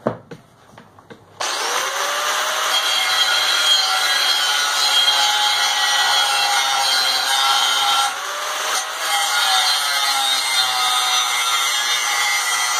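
Angle grinder cutting through the steel end cap of a propane forge, the disc grinding and ringing against the metal. A few light knocks come first, then the cut starts abruptly about a second and a half in and runs on, easing briefly near the middle.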